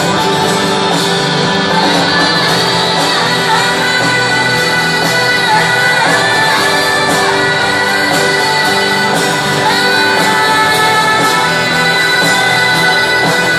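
Rock band playing live over a stadium PA, picked up from the crowd, with a saxophone playing a solo line of long, bending notes over the full band.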